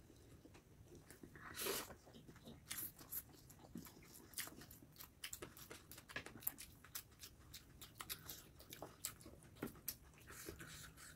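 Soft, close-up chewing and biting of fried chicken lollipop and stir-fried noodles, with frequent short crunches and wet mouth clicks.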